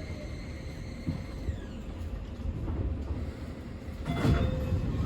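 Keio Liner train (Keio 5000 series) heard from inside the car, with a low running rumble. A steady high electric whine from the traction motors glides down in pitch and cuts out about a second and a half in. The rumble grows louder near the end.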